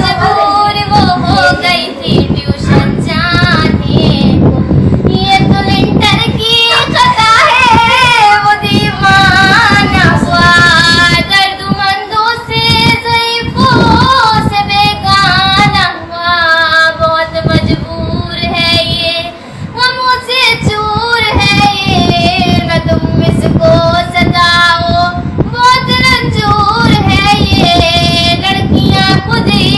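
A young woman singing solo with no instruments, holding long, wavering notes with short breaths between phrases.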